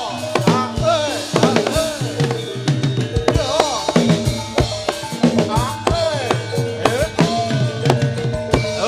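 Live gamelan accompaniment for a jathilan horse dance: hand drums beat a fast, busy rhythm over held ringing tones, with a melody above that bends up and down in pitch.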